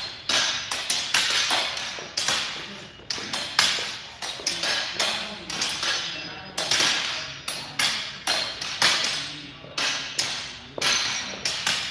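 Irregular sharp knocks and clacks of repeated strikes, two or three a second, each ringing on in a large hall's echo.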